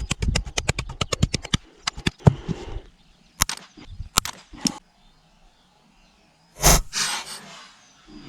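Sharp impact sounds from a Buck 285 Bantam folding knife being abused in a destruction test: a fast run of clicks, then several separate knocks and one heavier blow with a short ringing tail near the end.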